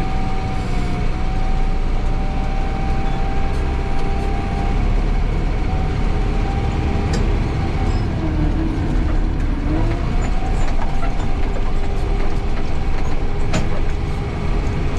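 Backhoe loader driving on the road, heard from inside its cab: the diesel engine and drivetrain run with a steady low rumble and a steady whine, with a couple of sharp knocks or rattles.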